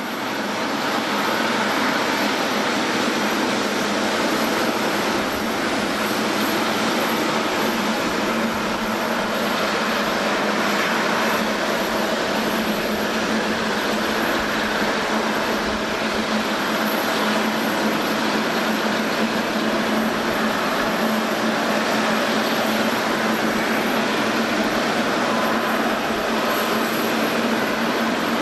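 Jet airliner taxiing with its engines at idle: a steady rushing noise with a low hum held throughout.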